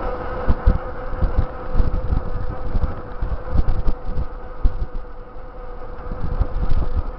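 Steady buzzing hum of a bicycle rolling fast on asphalt, with gusts of wind buffeting the handlebar-mounted camera's microphone.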